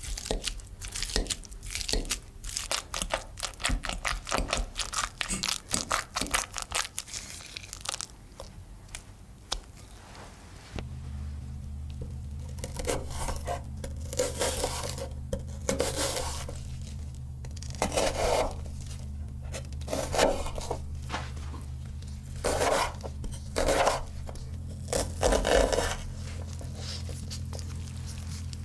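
Boiled potatoes being mashed with a wire potato masher in a glass bowl: a rapid run of squishing, scraping strokes for about ten seconds. Then a kitchen knife slices and chops onion on a wooden board, a series of separate cuts over a steady low hum.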